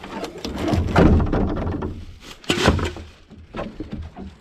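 Plastic wheelie bin lid being opened and handled, giving a run of thunks and knocks. The loudest comes about a second in, and a sharp pair of knocks follows about two and a half seconds in.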